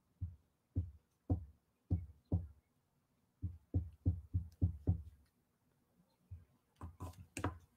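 Soft, irregular low thuds, a marker pen tapped against a cloth-covered table, coming in short runs of about two a second with a pause in the middle.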